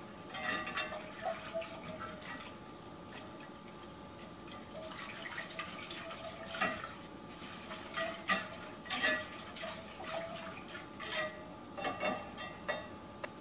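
Whisk stirring milk in a stainless steel saucepan: soft liquid sloshing with light taps and scrapes of the whisk against the pan, the strokes coming more often in the second half.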